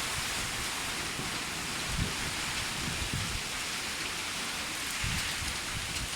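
Heavy summer-storm rain falling steadily, an even hiss, with brief low rumbles underneath.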